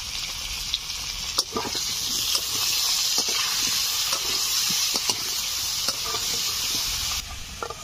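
Potato pieces frying in hot oil in a kadai: a steady sizzle with scattered clinks and scrapes of a spatula stirring them. The sizzle drops abruptly near the end.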